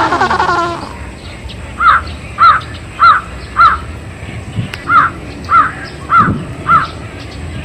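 A bird calling in a steady series of eight short, arched notes, about one every half second.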